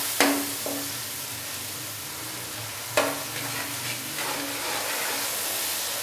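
Tomatoes, onions and spices sizzling in hot oil in a metal karahi while a metal slotted spatula stirs and scrapes through them: the tomato masala being fried down until soft. Two sharper clinks of the spatula against the pan, one just after the start and one about halfway through.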